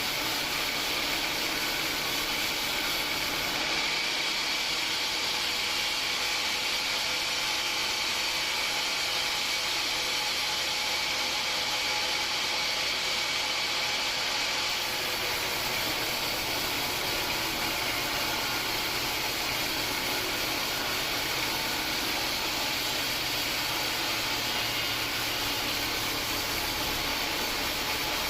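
Homemade band sawmill running steadily with an even, unbroken machine noise and a few steady whining tones; it gets deeper about halfway through.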